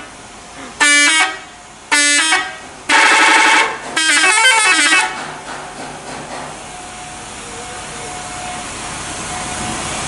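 Bus telolet horn, a multi-tone musical air horn, giving four blasts within about five seconds. The first two are short, the third is longer, and the last is a quick warbling run of changing notes. After that the horn falls silent.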